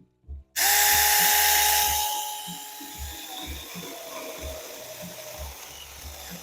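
A small battery-powered mini electric chainsaw (Saker) starts suddenly about half a second in with a steady whine. It is loudest for the first second and a half, then eases to a quieter run once the whine drops away about three seconds in.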